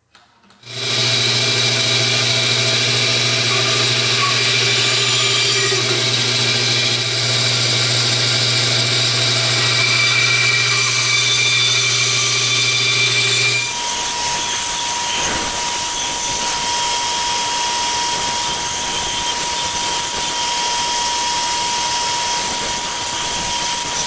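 Bench bandsaw running and cutting through a wooden rake handle. About halfway through, the low motor hum gives way abruptly to a steady high whine over a hiss.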